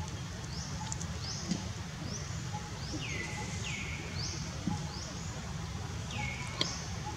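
Repeated high-pitched rising chirps, about one or two a second. A few falling squeal-like calls come midway and again near the end, over a steady low background rumble.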